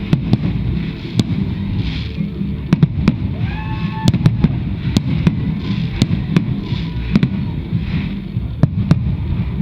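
Aerial fireworks in a dense barrage: many sharp bangs and cracks at irregular spacing over a continuous rumble of bursts.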